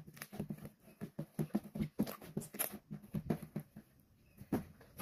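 White slime being squished, pressed and folded by hand, giving an irregular run of short squelching clicks and pops, several a second.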